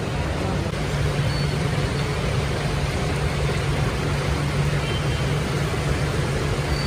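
A steady low mechanical hum with a constant rushing noise over it, the ambient drone of a busy street-food stall, unchanging throughout.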